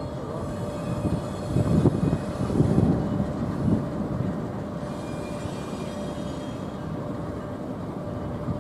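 Double-stack container train's well cars rolling slowly past: a steady rumble of wheels on rail, with a few heavier low knocks about two to four seconds in.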